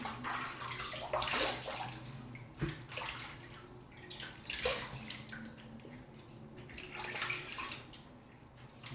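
Water splashing in irregular bursts as a face is rinsed with handfuls of water over a sink.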